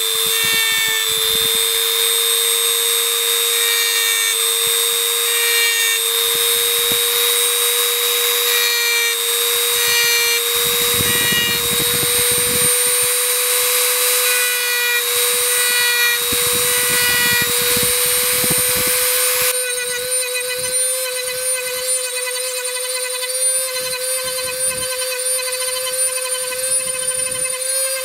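High-speed rotary tool with a carving burr whining steadily as it textures wood, its pitch creeping slightly upward. A rougher grinding comes and goes as the burr bites into the wood.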